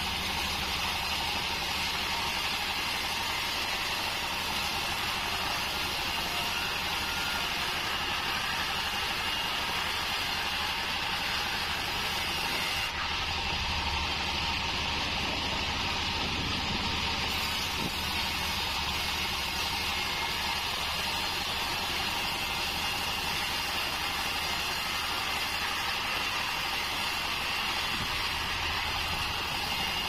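Band sawmill running steadily as its blade saws wadang (bayur) timber, with a constant high whine over the machine's hum.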